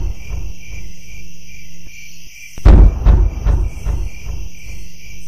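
Crickets chirping steadily. About two and a half seconds in comes a loud, deep boom that repeats in fading echoes, the loudest sound here.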